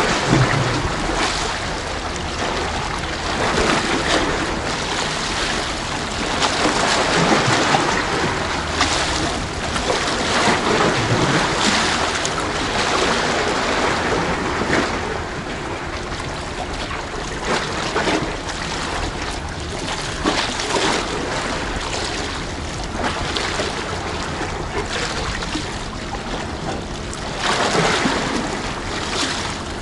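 Sea waves washing against a tetrapod breakwater, swelling and easing every few seconds, with some wind.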